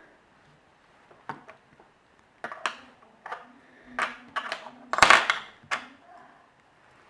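Small hard parts and tools clicking and clattering against a work surface as an iPhone 3G is handled during disassembly: scattered light taps, the loudest cluster about five seconds in.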